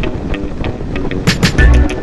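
Background music with a steady beat of light percussion, about four hits a second, over sustained notes. Heavier drums and bass come in near the end and the music gets much louder.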